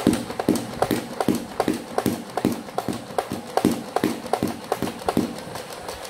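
Nerf N-Strike Elite Rapidstrike flywheel blaster firing full-auto: its flywheel motors whir steadily while the pusher cycles darts out in a rapid, even stream of about two to three shots a second. The shots stop a little after five seconds in as the clip runs empty, and the motors keep whirring briefly.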